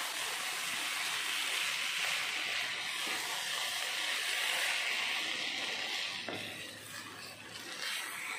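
Vermicelli sizzling in a nonstick pan while it is stirred with a wooden spatula. It makes a steady hiss that eases off about six seconds in.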